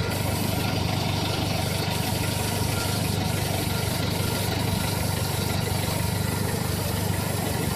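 Luxgen MPV at idle with the abnormal noise from its electric fuel pump: a steady hum with a thin steady whine above it. The owner takes it for a failing pump, the second one after the first made the car stall while driving.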